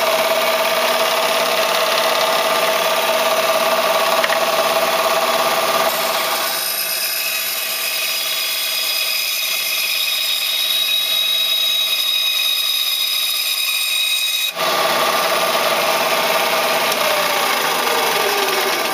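Bandsaw running, its blade cutting through a scrap wood board for several seconds in the middle with a higher whine. The plain running hum returns abruptly about three-quarters of the way through.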